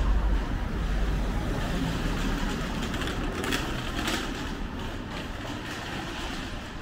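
City street ambience: a low vehicle rumble fades over the first second or two under a steady wash of street noise, with two short knocks about three and a half and four seconds in.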